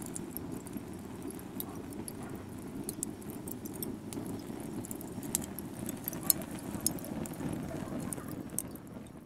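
Charcoal fire burning with open flames in a grill: a steady low rush with frequent sharp, irregular crackles and pops.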